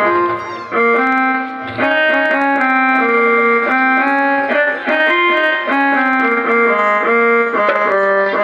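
Keyboard music: a melody of held, sustained notes moving step by step between pitches, with no singing.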